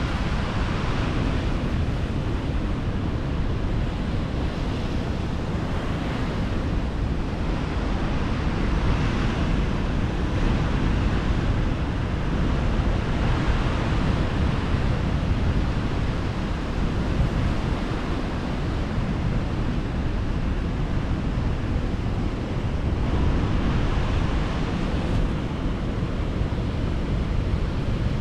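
Atlantic surf breaking and washing up a sandy beach, swelling and fading every few seconds, with wind rumbling on the microphone.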